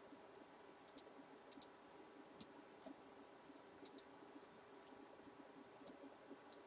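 Near silence with about a dozen faint, scattered clicks, some coming in quick pairs.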